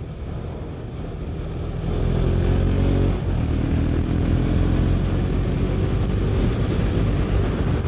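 KTM Duke motorcycle engine pulling under acceleration, with wind noise. It gets louder about two seconds in, and the revs rise, break off briefly about three seconds in, then rise again from lower.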